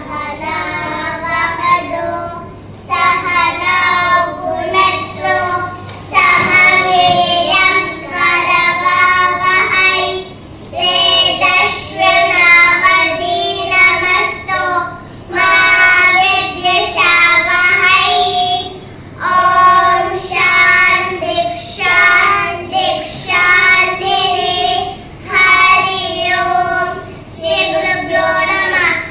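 Children singing a melody in phrases of a few seconds each, with short pauses between the lines. A faint steady hum runs under the first few seconds.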